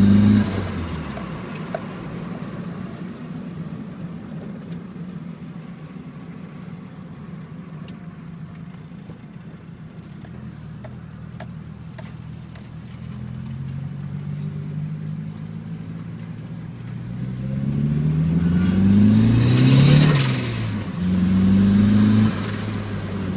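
Turbocharged Nissan Pulsar ET engine with a T28 turbo revving hard, then the throttle snapping shut with a burst of turbo flutter as the revs fall. After a long quieter stretch the revs climb steadily to a loud peak near the end and drop off sharply with flutter. A short second burst of throttle follows and is cut off.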